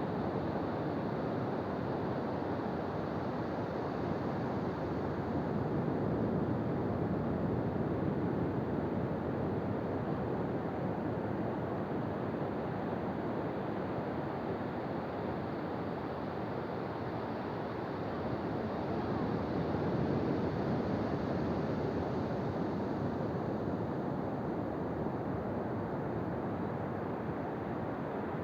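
Ocean surf on a beach: a steady wash of breaking waves that swells and eases slowly, with wind on the microphone.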